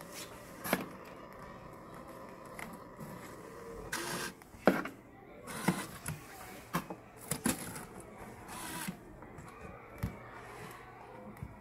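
Scattered knocks, taps and a brief scrape as a handmade board box and its hinged door are handled and a card is put inside, the sharpest knock a little under five seconds in.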